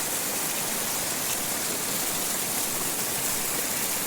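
Heavy rain pouring down, a steady, unbroken hiss.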